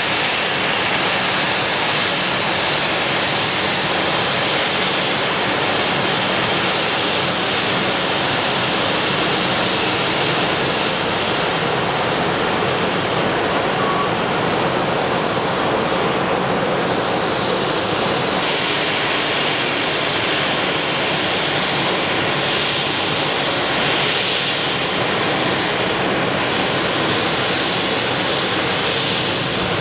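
An Embraer 195's two GE CF34 turbofan engines run at taxi idle as the airliner taxis, making a steady jet rush.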